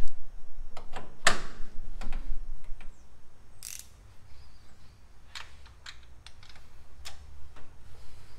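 Scattered, irregular sharp metallic clicks and taps of a socket wrench being fitted to and worked on the carburetor base nuts of a Chevy 350 V8 to check their tightness, the suspected source of a vacuum leak. The clicks come thicker and louder in the first few seconds.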